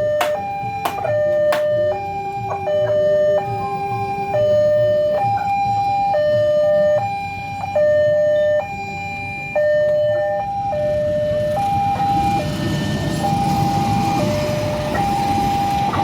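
Electronic railway level-crossing alarm sounding its two alternating tones, low and high, in an uneven, stuttering rhythm with irregular note lengths and brief dropouts: the crossing signal is 'coughing', faltering instead of keeping a steady beat. A rumbling noise builds beneath it over the last few seconds.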